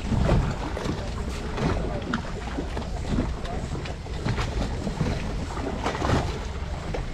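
Wind buffeting the microphone aboard a small boat at sea, a steady rough rumble with scattered knocks and thumps from the boat.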